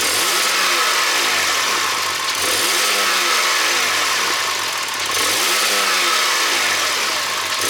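2017 Porsche 911 Targa 4S's twin-turbo flat-six revved three times while stationary, the engine pitch rising and falling back with each rev.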